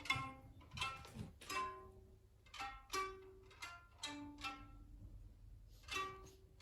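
Background music: a light melody of plucked string notes, one after another, with a few held lower notes underneath.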